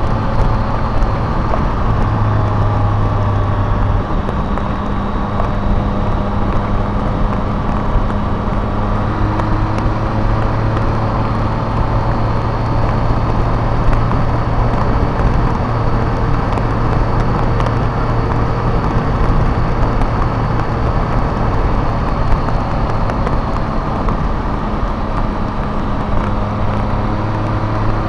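A road vehicle being driven: a steady low engine drone mixed with tyre and road noise.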